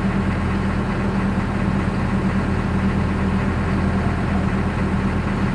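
A heavy engine running steadily at one speed, with a strong low hum.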